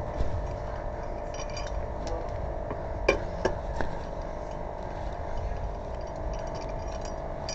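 Light metallic clinking of tools and parts during a car tire change, with three sharper knocks about halfway through, over a steady hum.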